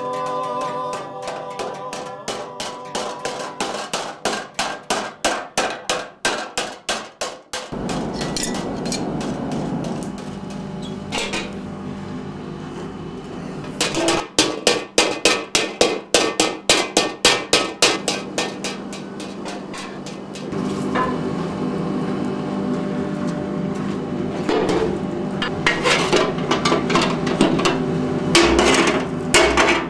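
Hammer blows on a hot steel cowbell shell being forged on an anvil: sharp metallic strikes in runs of about three a second. A steady low hum runs behind them from about eight seconds in.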